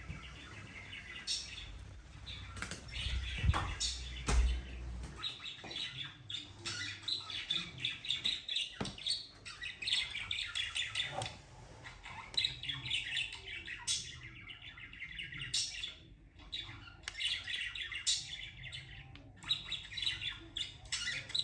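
Budgerigar chattering: repeated bursts of rapid, high chirps and squawks, broken by short pauses and a few sharp clicks. A low rumble sits under it for the first few seconds.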